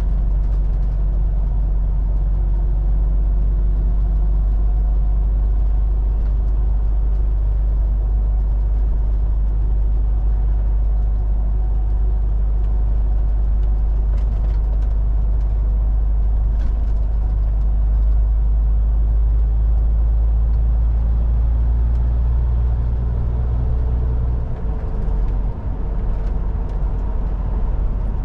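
Heavy truck's diesel engine and road noise while driving: a steady low rumble that briefly drops and wavers about 24 seconds in.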